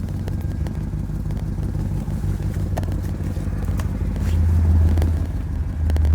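Car engine running at a steady idle with a low hum, swelling louder for about a second around four seconds in and again near the end, with a few light clicks.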